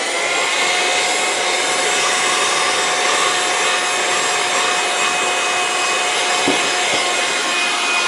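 Loftek cordless handheld car vacuum running steadily at full suction, a motor whine over a rushing hiss, as it sucks spilled milk out of a carpeted car floor mat.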